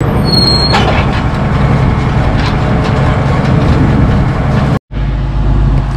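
Case tractor engine running steadily while pulling a spiked drum aerator, with a few light clanks. The sound cuts out for an instant just before 5 seconds, then the engine runs on with a steadier, lower tone.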